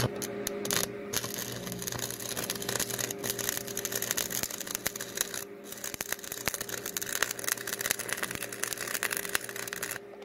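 Stick (arc) welding with a 7018 electrode: the arc strikes at the start, crackles and sputters steadily for about ten seconds, then breaks off near the end, over a steady electrical hum. The 7018 rod doesn't like dirt, and the steel here is rusty.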